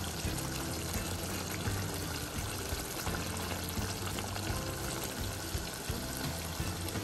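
Chicken liver and heart masala sizzling steadily in the pan as its gravy cooks down nearly dry, over background music with sustained low notes.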